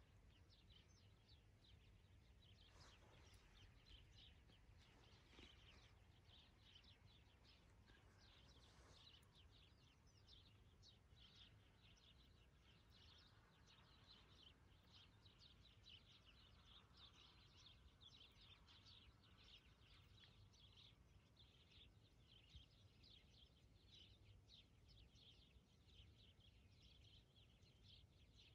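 Near silence: faint, high bird chirps, many short ones in quick succession, over a low steady rumble.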